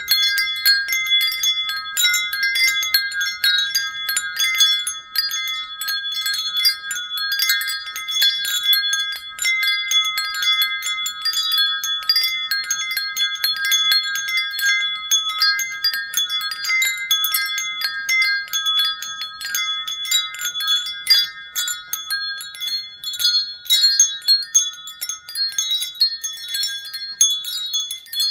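Wind chimes ringing continuously, their tubes struck over and over in a dense, irregular tinkle on several fixed high notes.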